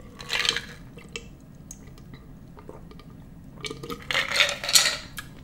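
A person drinking a glass of iced soda: gulping and liquid sounds, with a short stretch near the start and a louder run of gulps about four seconds in.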